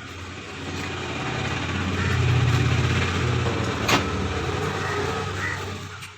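A motor vehicle engine running with a low hum that swells to a peak about two and a half seconds in, then fades away. A sharp click comes about four seconds in.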